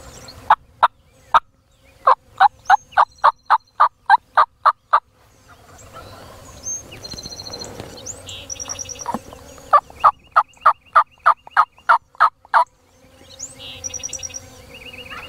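Loud turkey yelping in two fast runs at about four yelps a second: a few single yelps, then a run of about a dozen, a pause of several seconds, and another run of about ten.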